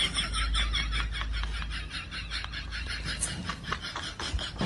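Rapid, rhythmic snickering laughter, about five short pulses a second, trailing off.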